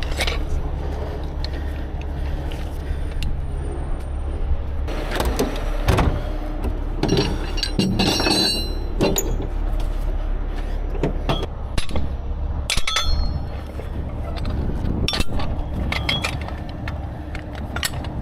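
Heavy diesel engine idling with a steady low rumble while steel rigging clanks and clinks as it is handled: shackles, snatch blocks and wire winch rope. A run of scraping, ringing metal comes about eight seconds in, and there are a few sharp clanks later.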